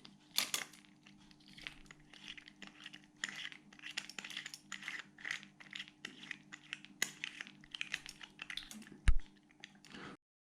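Screw-down case back of a Festina watch being unscrewed by hand: a run of small metallic clicks and scrapes, with one louder knock about nine seconds in.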